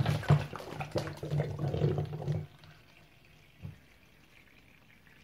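Water sloshing and swirling inside two taped-together plastic bottles as they are spun round to start a vortex. After about two and a half seconds it drops to very faint as the water drains through the vortex.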